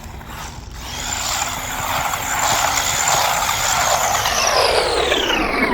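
Brushed electric motor and gearing of a JJRC Rigid C8805 1/14-scale RC truck whining under throttle. The high whine comes in about a second in, holds steady, then drops steeply in pitch near the end as the truck slows.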